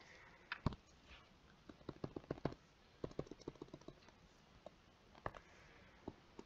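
Stylus tapping on a tablet screen, tapping out short dashes: a scatter of small sharp clicks, some in quick clusters and some alone.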